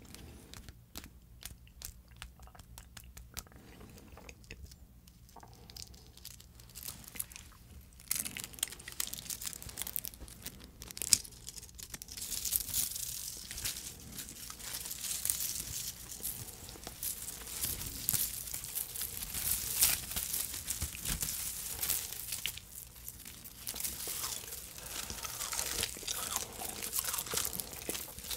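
Edible film tape crinkling and tearing as it is pulled, twisted and handled close to the microphone: sparse faint clicks at first, then dense crisp crackling from about eight seconds in.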